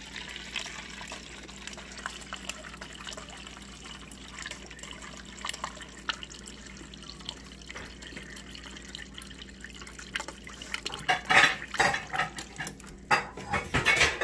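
Refrigerator door dispenser running a stream of water into a plastic cup, with air still working out of the line after a new filter so that the flow spits and sputters ("misfiring"). In the last few seconds there is a run of louder knocks and clatters.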